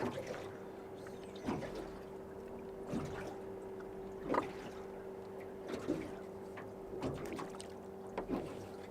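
Water lapping against a boat hull in soft knocks about every second and a half, over a steady hum that switches on at the start.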